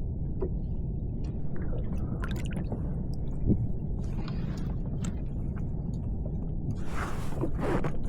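Sea water sloshing and dripping around a kayak over a steady low rumble, with scattered small clicks and a louder splashing hiss near the end.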